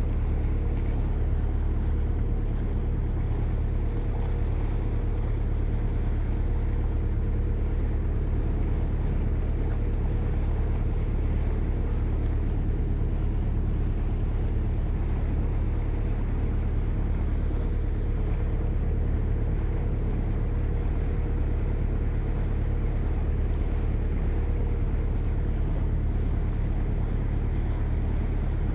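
Boat's engine running steadily underway: an even low rumble with a faint steady hum, and wind on the microphone.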